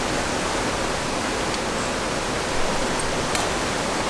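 Steady rushing of running water, even and unbroken, with a couple of faint light clicks a little past halfway through.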